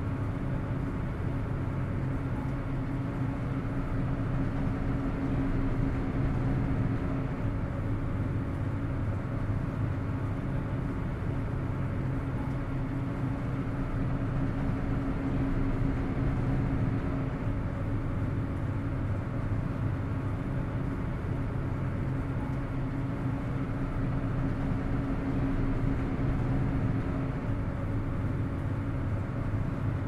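A ferry's engines run in a steady low drone with a constant hum through it.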